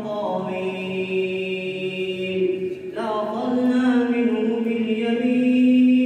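A single voice reciting the Quran in a melodic, drawn-out style, holding long steady notes, with a short breath break about three seconds in.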